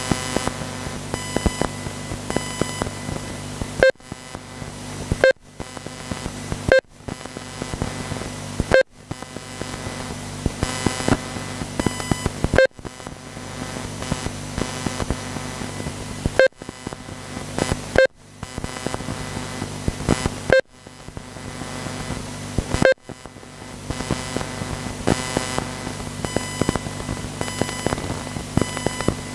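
RC race lap-timing system beeping as cars cross the timing line: about ten short, sharp beeps at irregular intervals over a steady electronic hum.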